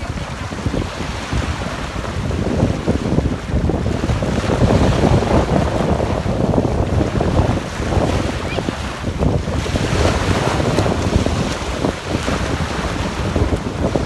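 Small waves breaking and washing up the beach in the shallows, with wind buffeting the microphone in a steady low rumble.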